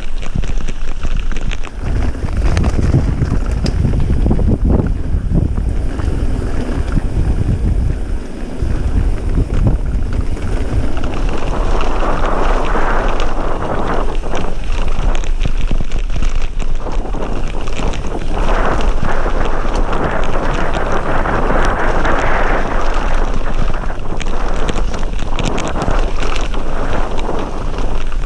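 Wind buffeting the microphone and a mountain bike's tyres running over a loose gravel trail, with rattles and clatter from the bike over rough ground. A heavy wind rumble dominates the first ten seconds or so; after that a steadier gravel hiss takes over.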